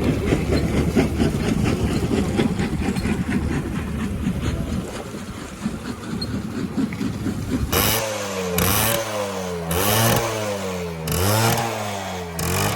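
Suzuki Max 100's single-cylinder two-stroke engine on its stock exhaust, running at a rough, uneven idle, then revved about four times from near the 8-second mark, the pitch climbing and falling back with each blip.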